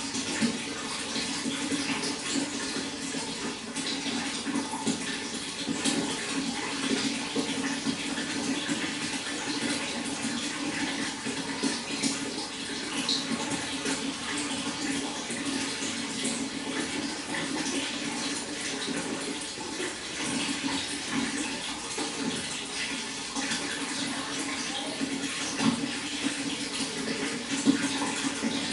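Water flowing and splashing steadily.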